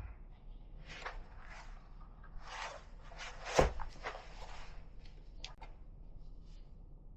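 Handling noises: several short rustles and scrapes, with one sharp knock about halfway through.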